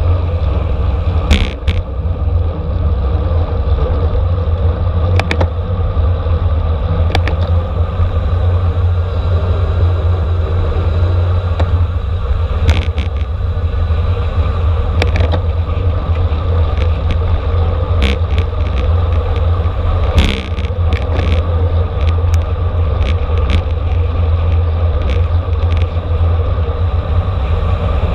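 Wind rushing over a camera microphone on a racing bicycle at speed, a loud, steady low rumble with tyre and road noise. Sharp clicks come now and then, about a dozen over the stretch.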